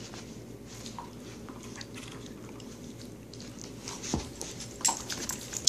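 A dog biting and tugging at a plush toy, with a steady scuffling and a cluster of sharp clicks and knocks near the end.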